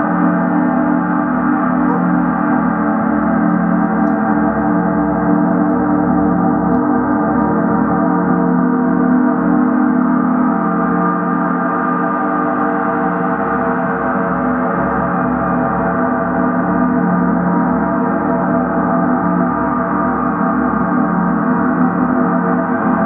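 Several large suspended gongs played continuously with soft felt-headed mallets, giving a steady, dense wash of many overlapping sustained tones with no distinct separate strikes.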